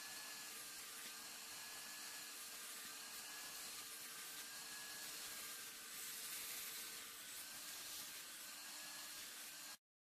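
A VEVOR wet-dry vacuum running faintly while its clear upholstery attachment works over a fabric car seat: a steady hiss with a low hum, cutting off abruptly just before the end.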